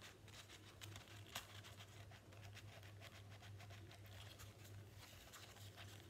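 Near silence: faint light ticks and paper rustles as fingers press a folded-paper fidget button on a table, with one slightly louder tick about a second and a half in, over a low steady hum.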